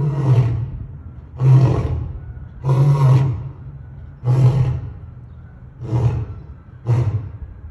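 Male lion roaring: a run of deep calls about one and a half seconds apart, the later ones shorter, quicker and quieter as the roaring bout tails off.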